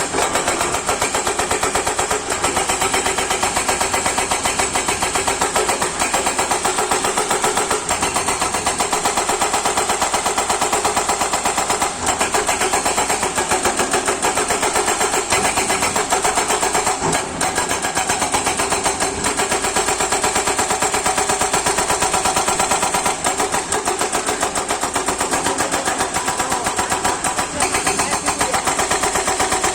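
Kato hydraulic excavator's diesel engine running steadily at working speed, with a fast even throb.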